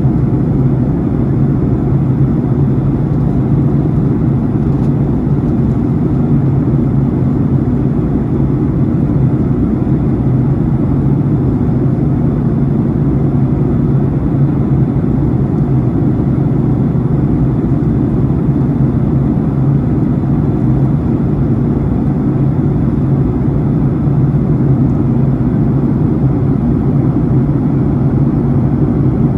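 Jet airliner cabin noise in flight: a steady, even drone of engines and airflow, with most of the sound low-pitched and no change throughout.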